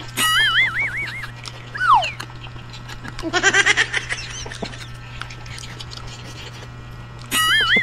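Sound effects added in editing: a warbling electronic tone that wavers up and down a few times, a falling whistle-like glide, then a quick run of rapid squeaky chatter. The warbling tone comes back near the end.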